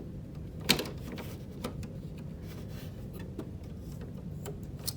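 Small plastic clicks and taps as a Canon PG-240 ink cartridge is fitted into a Canon Pixma printer's cartridge holder. There is one sharp click under a second in, then a few lighter ticks.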